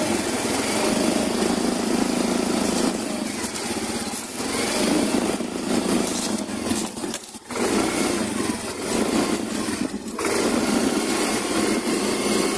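Yamaha Mio i125 scooter's small single-cylinder four-stroke engine running while it is ridden, with the plastic leg shield rattling and vibrating now and then, which the owner takes for a loose leg-shield panel. The sound breaks off briefly twice, about seven and ten seconds in.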